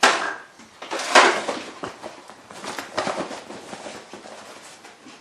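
Several short bursts of rustling and scuffing: one at the start, the loudest about a second in, and a cluster around three seconds in.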